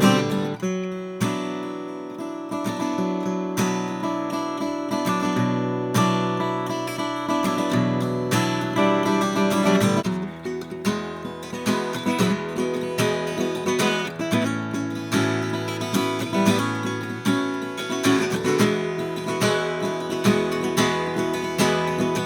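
1959 Gibson LG2 small-body flat-top acoustic guitar being played, strummed and picked chords, with a change in the chord pattern about ten seconds in. The guitar's pickguard is off, its top cracked above and below where the guard sat.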